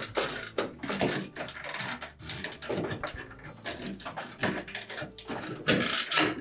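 Cloth sleeve rubbing and rustling right against the microphone, with irregular plastic clicks and knocks as a refrigerator's water filter cover is flexed and fitted onto its filter head housing.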